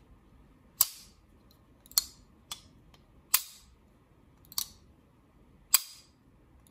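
Custom Spyderco Paramilitary 2 folding knife with titanium scales being flicked open and closed, giving about six sharp metallic snaps, each with a brief high 'ting' ring, roughly a second apart.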